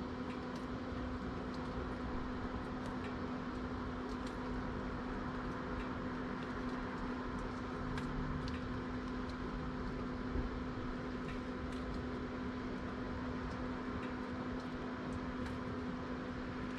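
A steady mechanical hum with a constant low tone, such as a motor or fan unit, with faint scattered ticks and one soft knock about ten seconds in.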